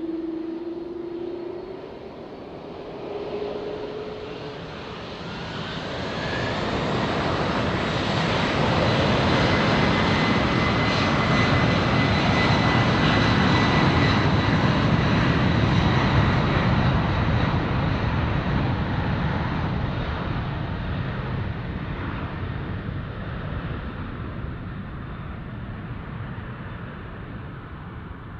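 Jet airliner's engines passing, growing over several seconds to a loud rush of engine noise with a thin high whine, then slowly fading away.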